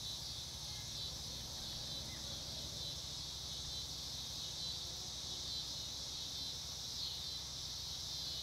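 Steady chorus of insects, a continuous high-pitched shrill trilling with no breaks, over a faint low rumble.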